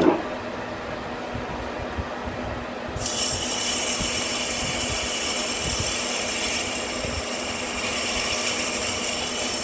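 Metal lathe running at 370 RPM with a 1018 cold-rolled steel part turning in the chuck. About three seconds in, a hand-held burr knife pressed against the spinning steel adds a high, steady scraping squeal that holds to the end.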